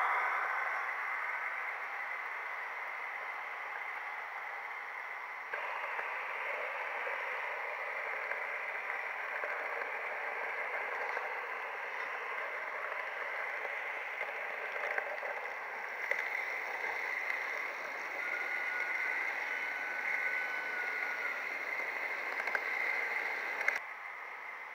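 H0-scale model train running on the layout track, heard from a wagon riding on the rails: a steady rolling noise of wheels on rails, a little louder from about five seconds in, with a faint steady high tone for a few seconds after the middle, dropping off just before the end.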